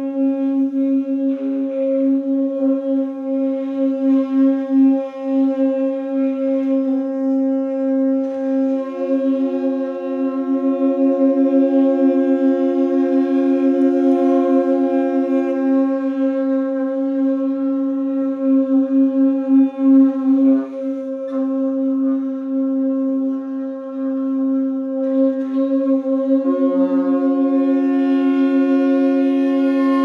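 Tenor saxophone quartet holding long, steady notes together as a drone, the low note wavering in loudness. A higher note comes in about nine seconds in and drops out around sixteen seconds, and another enters near the end.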